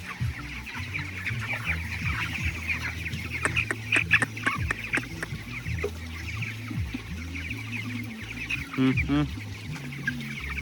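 A flock of farm chickens peeping and clucking continuously, many birds at once, with a few sharp clicks around four seconds in and a louder single call near the end.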